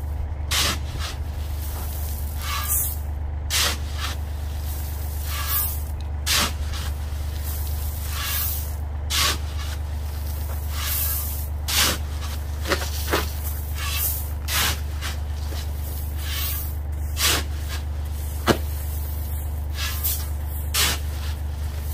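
Shovel scooping gravel out of a bulk bag and tipping it onto the ground: a short scraping rush of stones every second or two. A steady low engine hum runs underneath.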